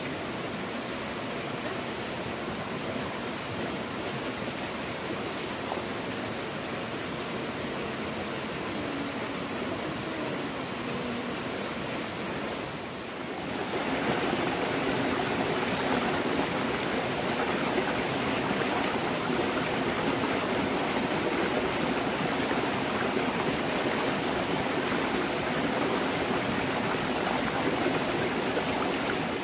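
Shallow rocky stream running over stones, a steady rush of water that gets louder about halfway through.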